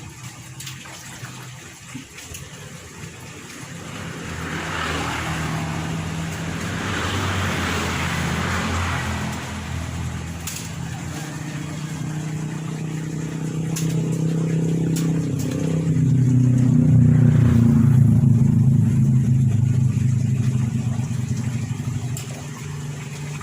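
A motor vehicle's engine running close by, growing louder toward the latter half and dropping in pitch as it peaks.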